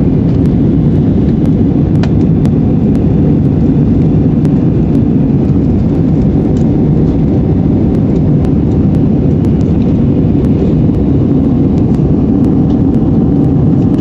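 Airbus A319 cabin noise in descent: a low, steady rumble of engines and airflow heard from a window seat over the wing, with faint scattered ticks.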